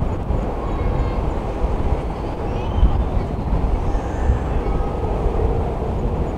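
Boeing 777 jet engines giving a steady low rumble as the airliner flies its landing approach.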